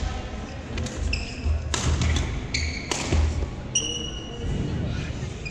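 Badminton singles rally on a hardwood gym floor: sharp racket hits on the shuttlecock, court shoes squeaking several times (one longer squeak near the end), and heavy footfalls as the players lunge.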